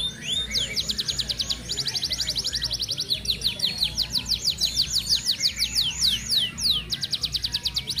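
Domestic canary (an Indonesian F1 kenari) singing a continuous rolling song. It is a string of rapid trills made of quick downward-sweeping notes, the tempo shifting between very fast tight runs and slightly slower phrases without a break.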